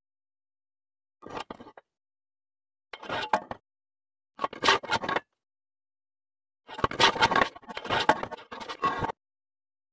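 Square metal tubing being handled on a steel welding table, metal scraping and clattering on metal in four short bursts. The last burst, near the end, is the longest and loudest.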